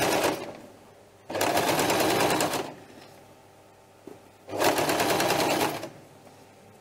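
Domestic electric sewing machine stitching bias binding in short stop-start runs: a run ending about half a second in, another of about a second and a half, and a third of about a second near the end, with quiet pauses between as the binding is guided around a V point.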